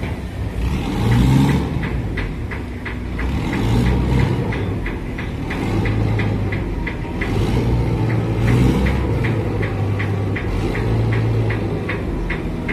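Boat engine running steadily, with a regular clatter about three times a second over a low drone that rises and falls slightly.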